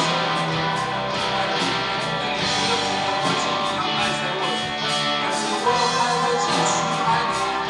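Rock band playing: electric guitars over a steady beat, with a singer's voice through the microphone.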